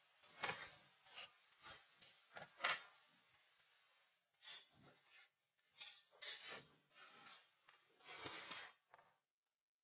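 Faint sounds of wood being worked by hand: a quick series of sharp knocks and snaps of branches, then several longer rasping strokes of a blade cutting into a branch, the longest near the end.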